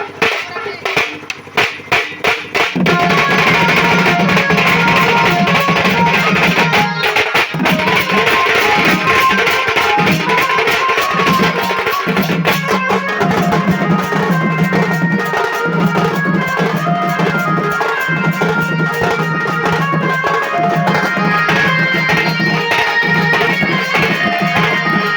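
Live melody band playing an instrumental passage: a few loud drum strokes in the first three seconds, then the full band comes in with drums over a steady bass line and melody.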